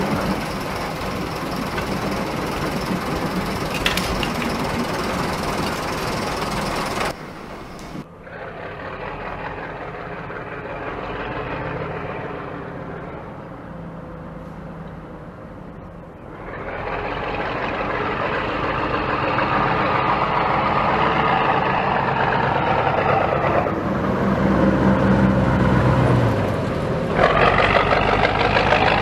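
Diesel shunting locomotive engine running, in several spliced recordings. The sound changes abruptly about seven, sixteen and twenty-seven seconds in, and is quieter and duller between about eight and sixteen seconds.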